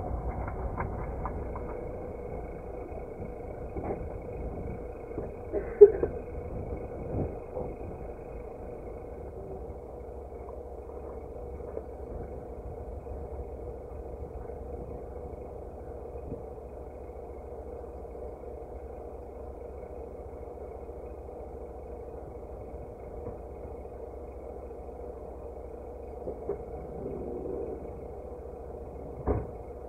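Steady low rumble of a vehicle running, with a faint steady hum and a few brief knocks, the loudest about six seconds in and another near the end.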